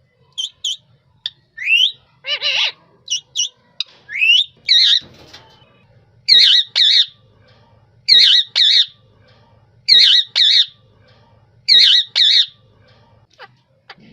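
Parrot squawking: a few short, varied calls and rising whistled calls, then a run of double squawks repeated about every two seconds.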